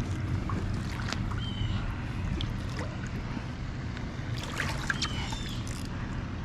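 Moving water over a steady low rumble, with scattered faint clicks and a few short high chirps.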